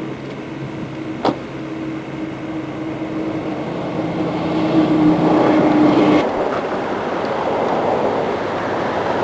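Motor vehicle running on the road: a steady engine hum with rushing road noise, a sharp click about a second in, the rush swelling around five seconds, and the hum cutting off suddenly about six seconds in.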